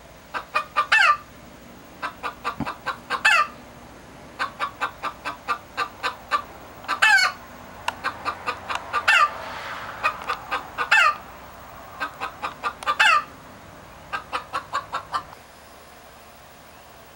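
Chicken screaming: about seven bouts of quick clucks, each ending in a longer, louder squawk that falls in pitch, coming roughly every two seconds and stopping shortly before the end.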